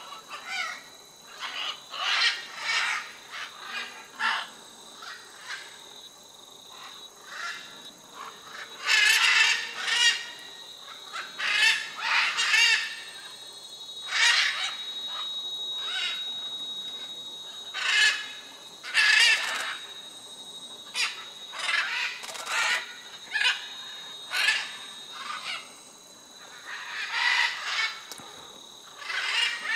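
A flock of red-and-green and blue-and-yellow macaws giving harsh squawks, the calls overlapping in bouts every few seconds.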